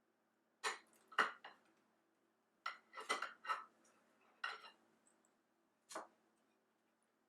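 Cutlery clinking and scraping against a plate in a handful of short, sharp knocks, grouped in loose clusters with gaps between.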